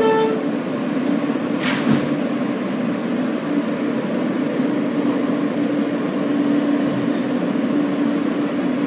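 R160 subway train rolling along elevated track, heard from inside the car: a steady rumble of wheels and running gear with a steady hum. A short horn toot trails off at the very start, and there is a single sharp click about two seconds in.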